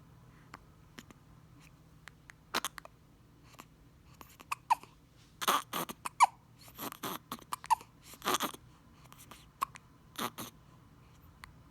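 Baby hiccuping: short, sharp hics coming irregularly about every second or two, several with a brief squeaky pitch, with a few longer breathy ones in the middle.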